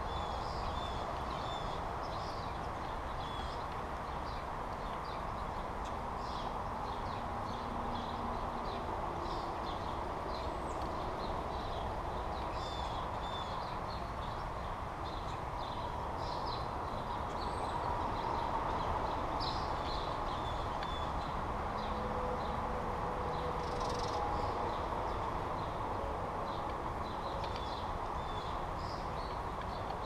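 Birds chirping in many short, high calls scattered throughout, over a steady low background rush.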